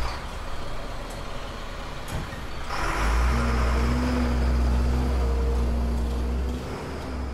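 City street traffic: a heavy vehicle pulls up with a burst of hiss about three seconds in. Its engine then runs with a low, steady hum that drops away near the end.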